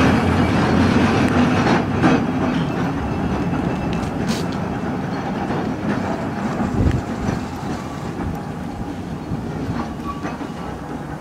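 Open-top double-deck narrow-gauge electric tram running away along the track, its rumble slowly fading, with a few clicks and knocks from the wheels on the rails.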